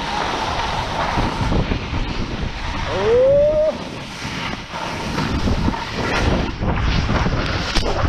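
Wind rushing over the microphone and a snowboard scraping and carving over groomed snow during a downhill run. A short rising tone cuts through about three seconds in.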